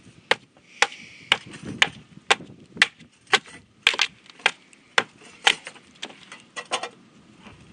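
Large bushcraft knife chopping into the wooden blade of a hand-carved paddle, taking off small pieces to thin it: sharp strikes about two a second, with a few quicker, lighter taps near the end.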